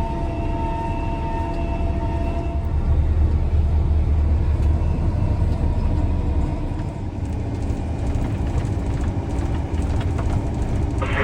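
Combine harvester's engine running steadily as the machine is driven along the road: a deep rumble that swells for a few seconds in the middle. A faint steady whine rides over it for the first couple of seconds.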